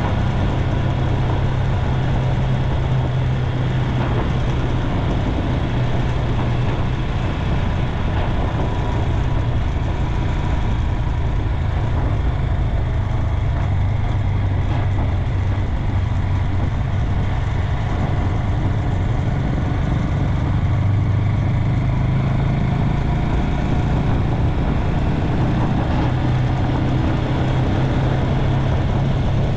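Small motorcycle riding at a steady cruising speed: a constant low engine drone under a steady rush of wind and road noise.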